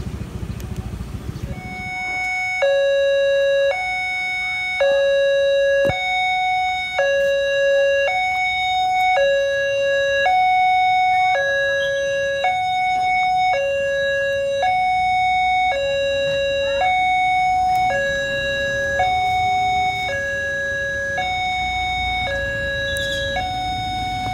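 Railway level-crossing warning alarm sounding a two-tone electronic ding-dong, alternating high and low about once a second. It starts about two seconds in and signals an approaching train.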